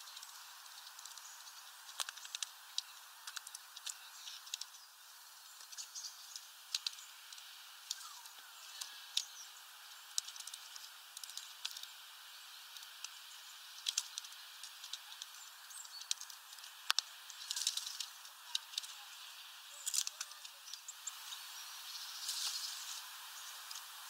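Irregular sharp taps and clicks of a Eurasian nuthatch pecking at sunflower seeds on a feeder tray, over a steady hiss.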